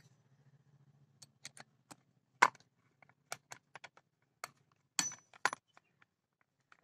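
Metal clicks and clinks of a box spanner and steel rod on a chainsaw's bar-mounting nuts as they are fitted and snugged lightly. Separate sharp ticks come, with the loudest about two and a half seconds in and a few more close together around five seconds.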